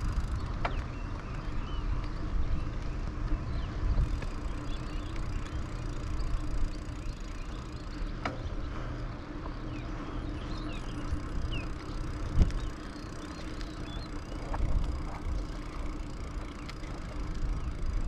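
Wind rumbling on the microphone outdoors on a bicycle ride, with faint bird chirps. A few short knocks stand out, the loudest about twelve seconds in.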